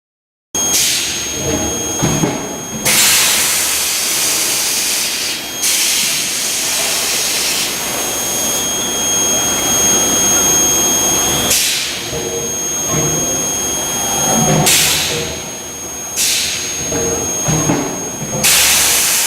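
Induction bar-end forging furnace running: a high-pitched whine that cuts in and out several times over a loud, steady hiss.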